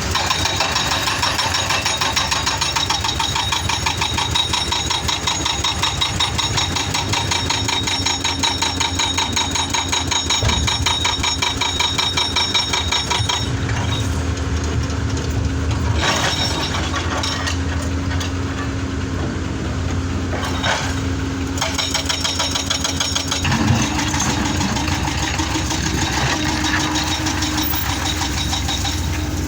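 Excavator engine running continuously with a fast, even rattle, and a steady hum that steps up in pitch near the end.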